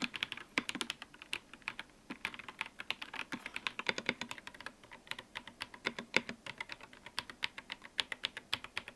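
Keys of an Akko 5075B Plus mechanical keyboard being typed on, a quick run of clacks several a second, with a brief pause about two seconds in.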